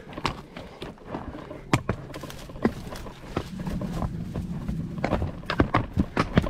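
Horses' hooves clopping on the ground as the horses walk, an uneven run of sharp strikes that comes thicker near the end.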